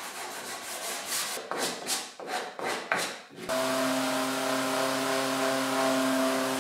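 Hand-sanding strokes rubbing along a plywood frame's edge, uneven and fairly quiet. About three and a half seconds in, an electric random orbital sander with a dust-extraction hose starts and runs steadily with a constant hum, louder than the hand strokes.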